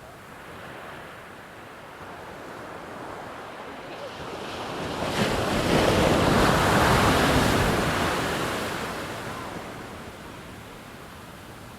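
An ocean wave breaking and washing in: a rushing noise that swells over a few seconds, peaks about halfway through, then fades away.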